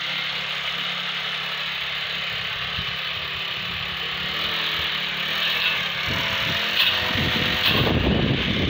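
Petrol brush cutter engine running steadily at working speed, with its cutting head whirring. In the last two or three seconds the sound grows louder and rougher as the head works into the brush.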